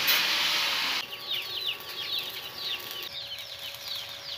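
Angle grinder cutting the steel of a dog cage, a loud steady hiss that stops abruptly about a second in. After that, chickens peep with rapid high falling chirps, several a second, over a faint hiss.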